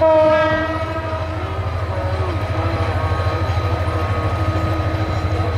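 A diesel locomotive's horn sounds at the start and fades out by about a second and a half in. The steady low rumble of the diesel-hauled commuter train passing runs under it and carries on after it.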